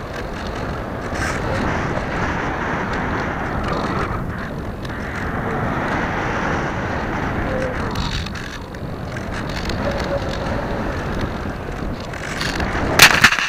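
AXN Floater-Jet RC plane in flight, heard from its own airframe: the electric outrunner motor and pusher propeller running under steady rushing wind. Near the end a single sharp, loud impact comes as the plane hits the ground, and the noise drops right after.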